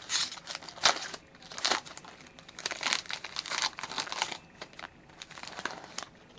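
Shiny wrapper of a 2012-13 SP Game Used hockey card pack being torn open and crinkled by hand, in a quick run of irregular crackling bursts.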